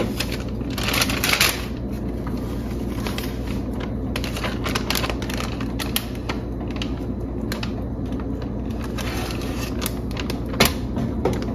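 Thin plastic snack packet crinkling and crackling in short irregular clicks as it is opened and handled, over a steady low hum.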